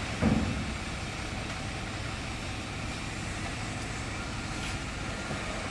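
UD heavy truck's diesel engine running steadily at low revs, with a brief thud about a third of a second in.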